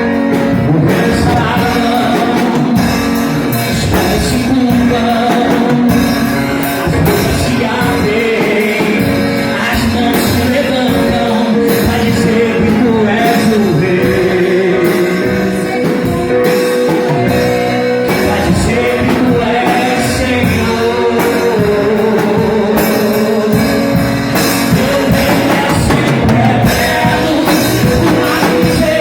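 A worship band playing a song with a singing voice and a drum kit keeping a steady beat.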